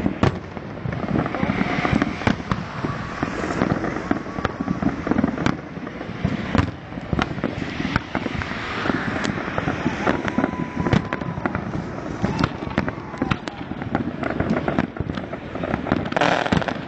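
Fireworks display: aerial shells bursting one after another, a steady run of sharp bangs and crackles.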